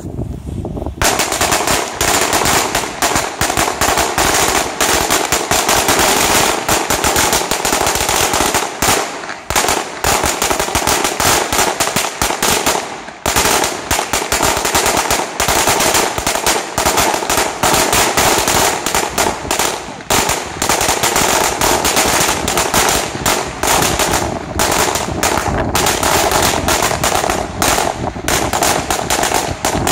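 Thunderbomb firecracker mat going off: a dense, rapid, unbroken string of loud bangs that starts about a second in and keeps going.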